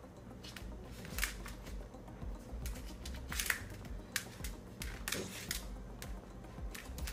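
Puppy's claws clicking and tapping on a laminate wood floor as it paws and pounces, irregular sharp clicks about one or two a second.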